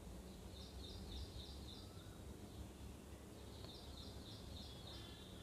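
Faint background: a low steady hum, with a bird chirping a quick run of about six high notes about a second in and again near the end.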